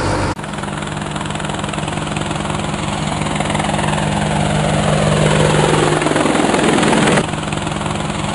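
Quadcopter drone's propellers whirring steadily with a fast flutter. Over it, a whoosh slides down in pitch over about five seconds and cuts off sharply about a second before the end.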